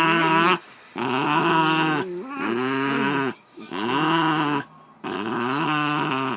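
Basenji yodelling and grumbling: a run of four or five drawn-out, wavering howl-like calls, each about a second long with short breaks between. These are the breed's warning sounds in a tense standoff with another dog over a toy.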